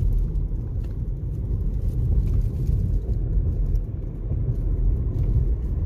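Steady low rumble of a car driving at speed: road and engine noise heard from inside the moving vehicle.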